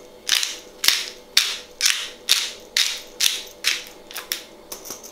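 Hand-twisted pepper grinder cracking white peppercorns, in short grinding bursts about two a second that grow fainter near the end.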